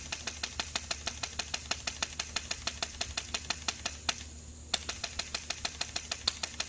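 Polarstar Kythera HPA-powered airsoft rifle firing semi-auto as fast as the trigger can be pulled, a rapid string of sharp shots at about six a second. The firing pauses for about half a second around four seconds in, then resumes at the same pace.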